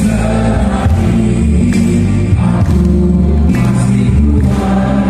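A man singing a song into a microphone over loud amplified backing music with a prominent bass line, through PA loudspeakers.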